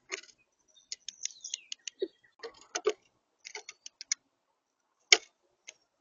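Brown thrasher sounds: an irregular run of sharp clicks and knocks, about a dozen of them, with a brief falling note about a second and a half in and the loudest click about five seconds in.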